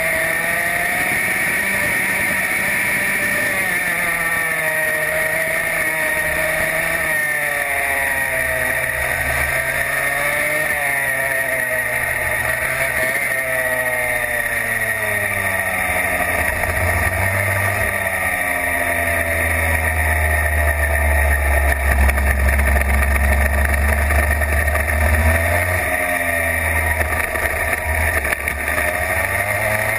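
Racing kart engine heard on board at racing speed, its pitch climbing on the straights and dropping as it slows into corners, over and over. About twenty seconds in a heavy low rumble joins it for several seconds.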